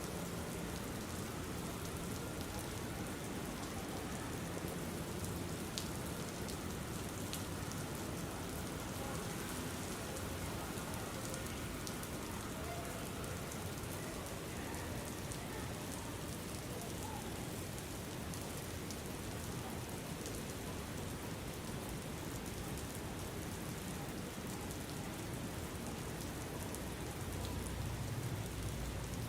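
Steady rain ambience with scattered drop ticks. A low rumble swells briefly near the end.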